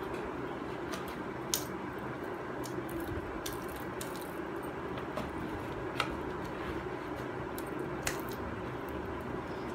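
Hands squishing and kneading wet multani mitti (fuller's earth) clay paste in a plastic basin. Three sharp clicks stand out, about one and a half, six and eight seconds in, over a steady background hiss.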